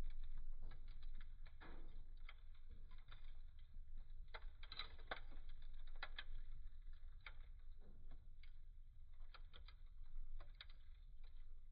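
Wood fire crackling in a fireplace: irregular sharp pops and snaps over a low steady rumble, with a quick flurry of crackles about five seconds in.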